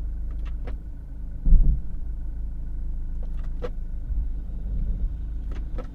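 BMW F30 drivetrain heard from inside the car: a steady low rumble, one heavy low thump about a second and a half in, and several short sharp knocks. The uploader puts the knocking from beneath the center console down to a deteriorating rubber propeller-shaft coupling (flex disc).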